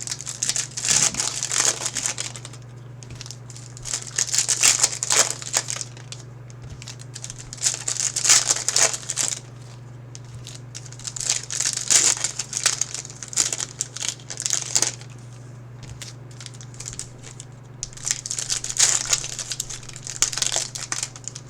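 Trading-card pack wrappers crinkling and tearing as packs are opened by hand, in repeated bursts every few seconds over a steady low electrical hum.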